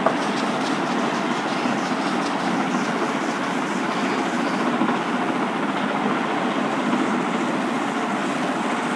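Whiteboard eraser rubbing back and forth across a whiteboard, wiping off marker writing: a steady scrubbing noise.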